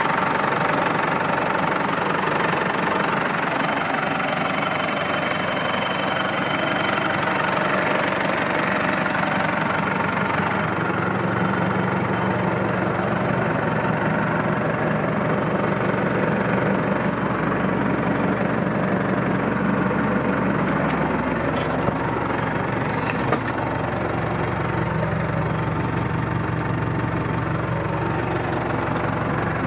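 Ford New Holland 7740 tractor's diesel engine idling steadily, its tone shifting a little about ten seconds in.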